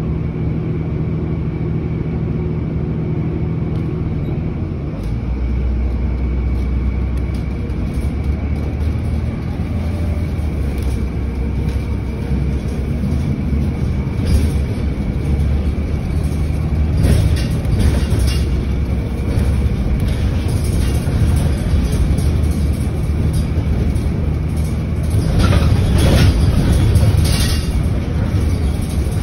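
Inside a city transit bus: the engine idles at a stop, then the bus pulls away about four seconds in and drives on, with a steady low engine drone and road rumble. Short rattles come through from time to time, louder near the end.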